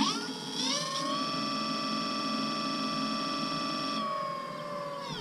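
Scooter's rear drive wheel motor whining as it spins up with a click, rising in pitch over about a second, holding a steady tone, then winding down near the end. The noise appears when the wheel first kicks off under throttle and is the fault the owner is trying to diagnose; the front wheel does not do it.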